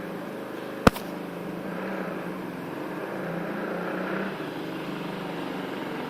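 Faint, steady hum of a distant motor vehicle engine, with a single sharp click about a second in.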